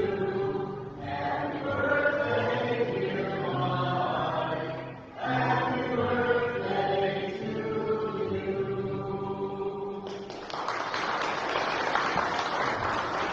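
A group of voices singing a hymn in held phrases, with short breaks about one and five seconds in. About ten seconds in the singing stops and applause begins.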